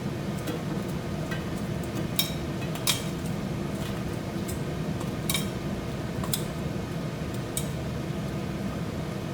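Scattered light clinks and taps of kitchen utensils against a pot and steamer as cabbage is put in to steam, over a steady low hum.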